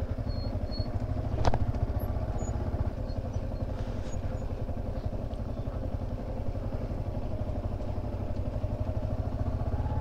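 Motorcycle engine running steadily at low revs, with one sharp click about one and a half seconds in.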